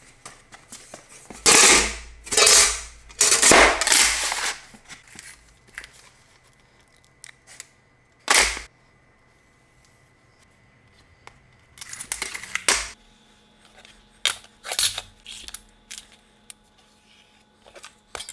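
Several loud, sharp cracks in the first few seconds. Then, after a quiet stretch, scattered metallic clacks and taps as a steel square and tools are set down and moved on aluminium sheet lying on a steel weld table.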